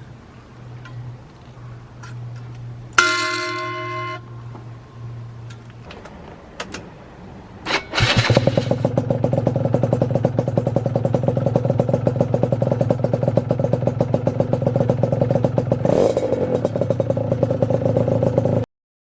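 Yamaha RZ50's 50 cc two-stroke single-cylinder engine starts about eight seconds in and idles with a fast, even pulse through its expansion chamber, with a brief rev near the end before the sound cuts off abruptly. A short ringing tone is heard about three seconds in.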